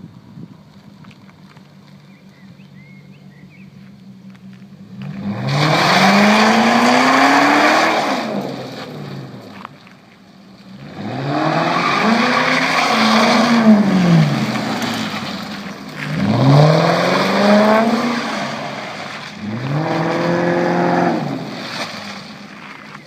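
Lincoln Mark VIII's 4.6-litre DOHC V8 with an open, straight-through exhaust, idling and then revved four times, each rev climbing and dropping back to idle.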